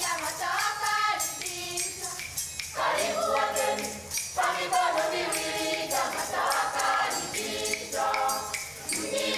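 Tanzanian children's choir singing together in phrases, over a steady percussive beat.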